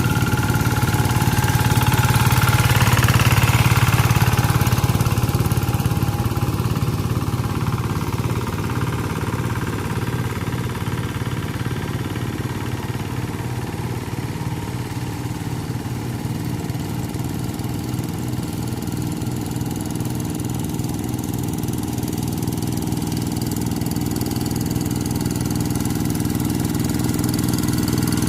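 Kubota RD85di single-cylinder diesel engine of a Quick TL800 two-wheel hand tractor running steadily; it is loudest a few seconds in, eases off through the middle and grows louder again near the end.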